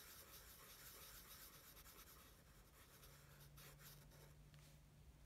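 Faint scratching of a black Sharpie marker on paper as it fills in a solid black area, in short strokes. A faint low hum comes in about halfway through.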